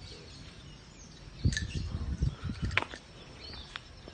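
Outdoor background with birds chirping, broken about a second and a half in by a cluster of low thumps lasting just over a second.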